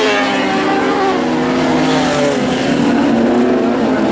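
Lightning sprint cars racing on a dirt speedway oval, several engines running hard at once. Their notes rise and fall and overlap as the cars go through the turns.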